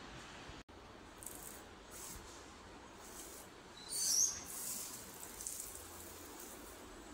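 Faint steady hiss, then about four seconds in a brief, high-pitched squirting hiss and squeak from a brass spray nozzle as anti-termite chemical is sprayed into the joint of a kitchen cabinet.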